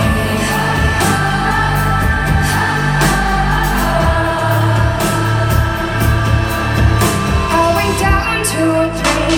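Live pop concert music over a PA: a female lead singer over a steady electronic beat and repeating deep bass notes.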